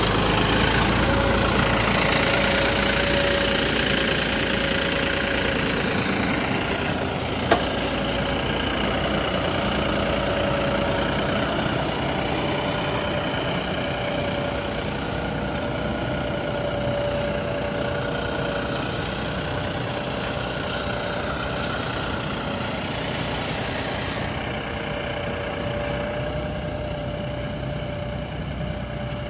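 John Deere 5405 tractor's diesel engine running steadily as the tractor pulls a cultivator through wet paddy mud, with a steady whine over the engine. There is one sharp click about seven and a half seconds in, and the sound eases slowly as the tractor moves away.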